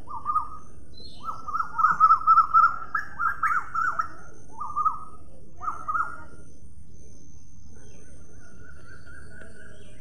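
Parrot calling: a quick run of short, repeated harsh notes for about six seconds, followed by a fainter, drawn-out wavering call.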